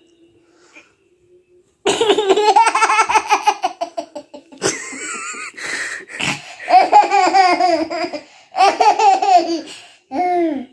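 A toddler laughing in repeated high-pitched bursts, starting about two seconds in.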